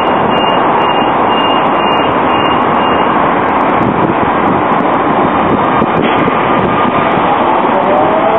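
A Bombardier CR4000 light-rail tram approaches over a steady, loud rushing noise. High beeps repeat about two to three times a second until about three seconds in. Near the end, as the tram comes close, a rising electric whine from its traction motors starts.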